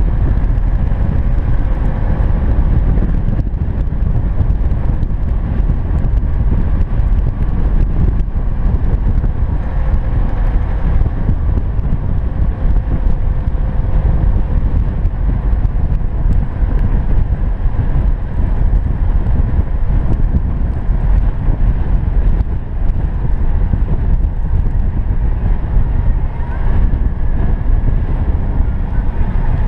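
Car driving along a snow-covered road: a steady low rumble of engine, tyres and wind noise.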